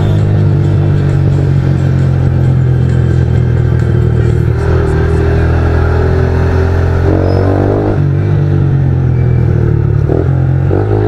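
Small-displacement motorcycle running loud through an aftermarket Torbal sport exhaust while riding, a steady deep exhaust drone. The engine note rises briefly about seven seconds in, then settles back.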